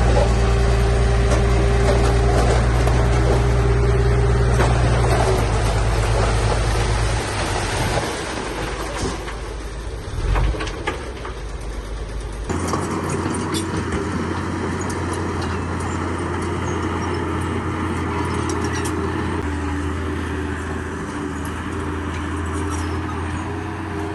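Heavy diesel construction machinery running: a deep, steady engine drone that fades about seven seconds in, then after an abrupt change about halfway through, another engine drones steadily.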